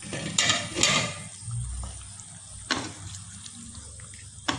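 Chicken pieces cooking in their own liquid in a nonstick karahi, bubbling steadily, while a wooden spoon stirs them. There are a couple of scraping rushes in the first second and two sharp knocks of the spoon against the pan, one midway and one at the end.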